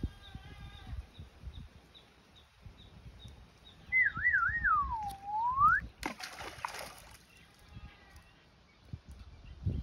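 A whistle that warbles quickly, swoops down and then up again, followed about six seconds in by a splash lasting about a second as something lands in the river.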